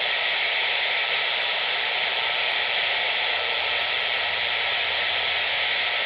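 Steady static hiss from a CB radio, confined to the radio's narrow voice band, with no voice on the channel.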